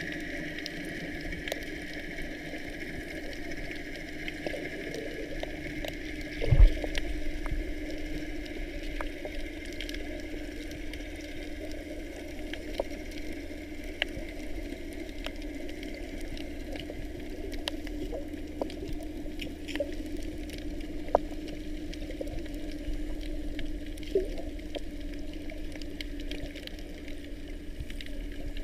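Underwater ambience picked up by a submerged camera: a steady muffled water hum, peppered with faint scattered clicks and crackles, with one louder knock about six and a half seconds in.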